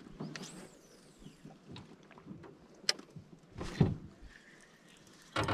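Quiet, with a few small clicks and knocks as a spinning reel and line are handled in an aluminium boat. There is one sharp click about three seconds in and a duller knock just under a second later.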